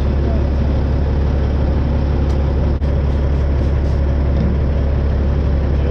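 Caterpillar C-15 diesel of a Kenworth semi idling steadily, a constant low rumble.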